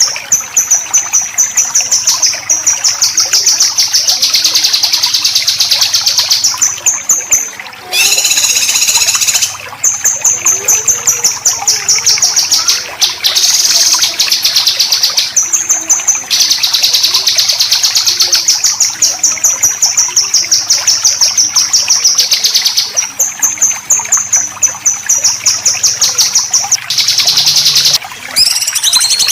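Songbird singing besetan, a long, fast, harsh trill of rapidly repeated high notes, broken by brief pauses and a few different phrases.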